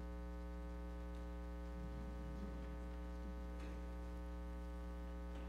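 Steady electrical hum from the stage sound system, with a few faint ticks.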